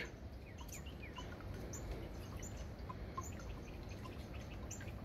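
Quiet outdoor ambience with birds chirping: many short, scattered chirps over a low, steady background rush.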